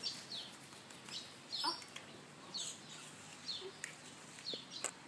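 A bird chirping again and again, a short falling chirp every second or so, with a few faint knocks between the chirps.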